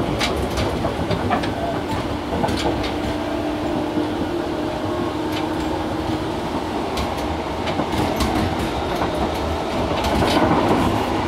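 Tobu 6050 series electric train running, heard in the motor car Moha 6151: a steady rumble of wheels and running gear with scattered sharp clicks from rail joints, growing a little louder near the end.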